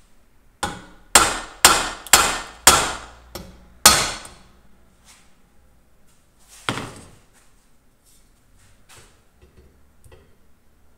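Hammer blows on a tack-welded bicycle frame, knocking a crooked joint straight: a quick run of about seven sharp metallic strikes, each ringing briefly, then a single further strike a few seconds later.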